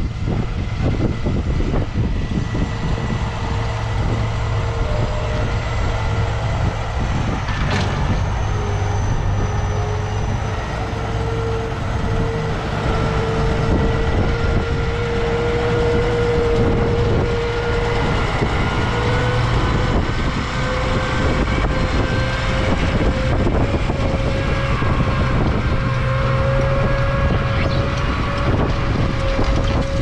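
New Holland T7.315 tractor's six-cylinder diesel engine running steadily under load as it pulls a seven-furrow plough through the soil, with a held whine above the engine note.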